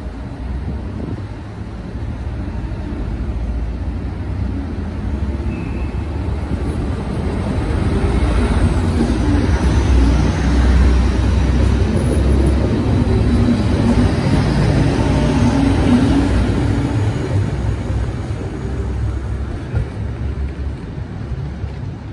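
DSB IC3 (MF) diesel multiple unit running past along the platform: a low engine and wheel rumble that builds, is loudest in the middle as the cars go by, and fades away near the end.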